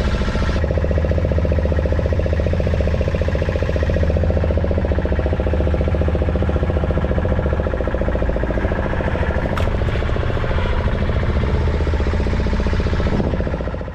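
Small fishing boat's engine running steadily, a continuous low, evenly pulsing drone.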